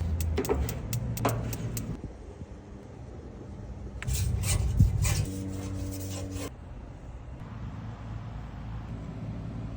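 Metal clinks and scraping on a griddle being cleaned up for reseasoning, in two clusters of sharp clicks, over a low steady hum.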